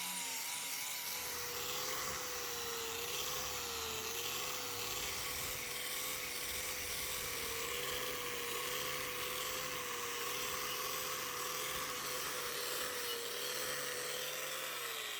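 Small electric power tool motor running steadily, its pitch wavering a little as it works the wood, then winding down near the end.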